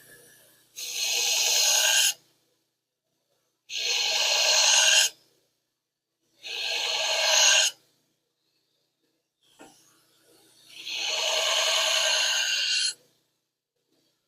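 Steel knife blade being ground on a power edger in four passes of a second or two each, a harsh hiss with short breaks between.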